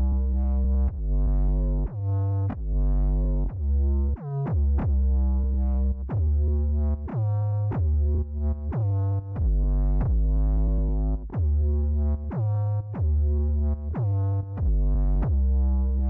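Instrumental electronic music: a synthesizer plays a run of short repeated notes, each dropping sharply in pitch as it starts, over a deep sustained bass.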